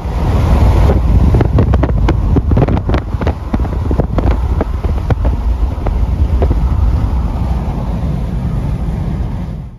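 Road and wind noise inside a moving vehicle at highway speed: a loud, steady low rumble, with a scatter of sharp clicks through the first half.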